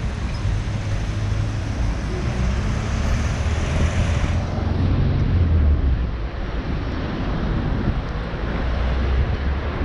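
Steady city street traffic noise, a continuous low rumble of passing vehicles, with wind buffeting the microphone.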